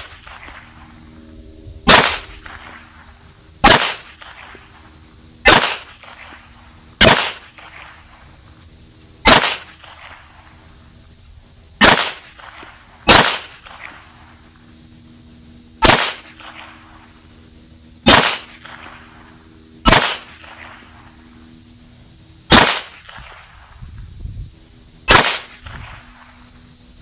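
CZ83 pistol in .380 ACP (9 mm Browning) firing twelve single shots at a slow, deliberate pace, about one every two seconds. Each shot is a sharp crack with a brief echo.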